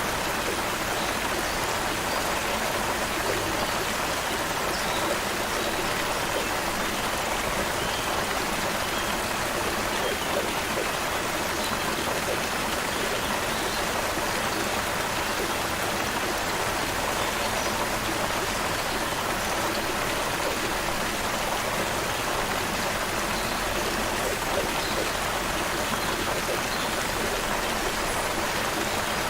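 Creek water flowing steadily over stones, an even rushing and burbling.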